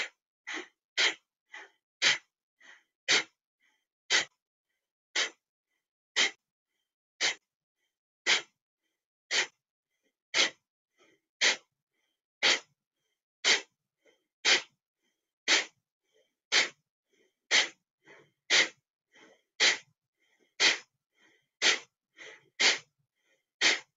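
Kapalabhati breathing: short, forceful exhales through the nose, each pushed out by pulling the abdomen back toward the spine. They come about one a second, a little quicker in the first couple of seconds.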